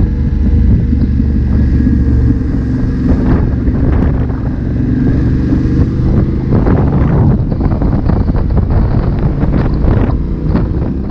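Yamaha Ténéré 700's parallel-twin engine running steadily under way, with wind buffeting the microphone, the gusts heavier in the second half.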